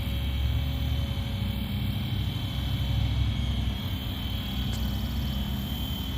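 FlyWing FW450 V3 RC helicopter in flight, giving a steady high whine over a low rumble.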